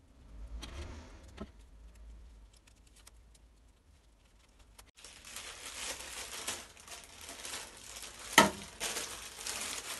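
Paper crinkling and rustling as a marked-up paper bag for the piston rings is picked up and handled, starting about halfway through, with one sharp click near the end. Before that, faint small clicks of hands working at a piston on the bench.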